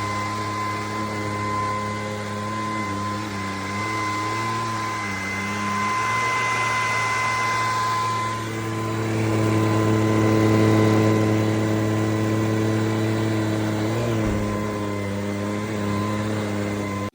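Bissell PowerClean FurGuard cordless stick vacuum running, a steady motor hum with a high whine whose pitch dips and shifts a few times as the load changes, then cuts off suddenly.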